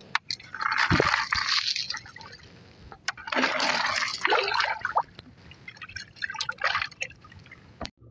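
A hand stirring a bucketful of small wet shellfish, the shells rattling and sloshing against each other and the water in three bursts.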